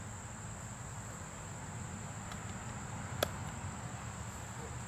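Crickets chirring steadily in the background, with a single sharp crack a little after three seconds in: the shot of a Benjamin Bulldog big-bore air rifle firing a hollow-point slug.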